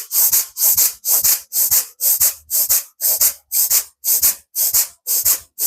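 Forceful nasal breathing through the right nostril, the left held closed: rapid, even in-and-out breaths at about two a second, each a sharp hiss. This is a single-nostril pranayama, forced breaths in and out, done to clear a blocked nose.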